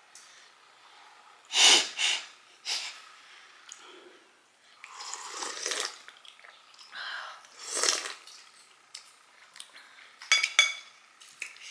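Soup being sipped and slurped from a spoon, several short slurps a second or two apart, with light clicks of metal spoons against ceramic bowls.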